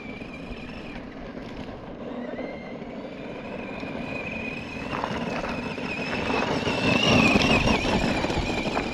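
Vintage Tamiya 1/10 RC monster truck with an 18-turn Speedworks 350 brushed electric motor, whining as it drives across gravel, with its tyres crunching and throwing stones. It grows louder as the truck comes close, loudest about seven seconds in, and the whine wavers as the throttle changes.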